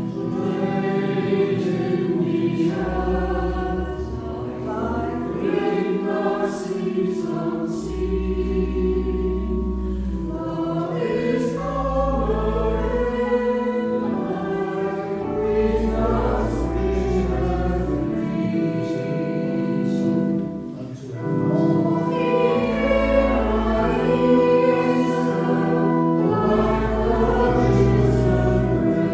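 Voices singing a hymn in church over sustained organ chords with long held bass notes, with a short break between phrases about two-thirds of the way through.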